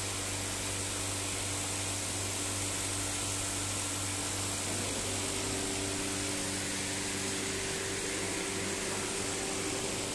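Steady hum of running machinery with a constant hiss; a new hum tone comes in about halfway through.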